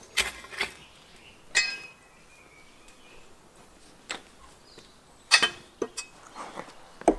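A knife working through raw ostrich meat on a board: a series of sharp, irregular knocks and clicks, a few with a short metallic clink, coming closer together near the end.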